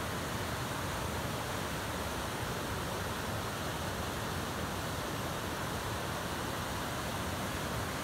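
River in flood rushing over rocky rapids: a steady, unbroken rush of turbulent water.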